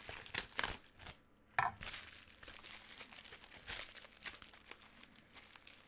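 Clear plastic bubble wrap crinkling and rustling in irregular crackles as it is handled, cut and pulled open, with the clear tape sealing it tearing.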